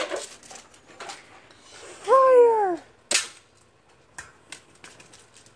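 A single sharp shot from a BB gun about three seconds in. It comes after a loud, high, drawn-out cry that falls in pitch, and a few faint clicks follow it.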